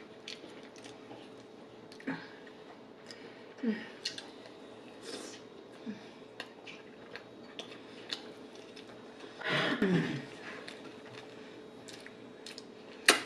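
Close-miked eating sounds: soft food being chewed, with small wet mouth clicks. A louder, briefly humming mouth sound comes about ten seconds in, and a sharp click comes near the end.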